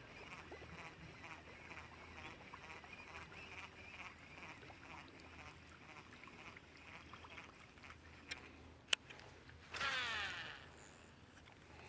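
Faint, steady chorus of frogs calling in a rapid pulse. Near the end come two sharp clicks, then a short whir that falls in pitch, like a casting reel's spool spinning out and slowing during a cast.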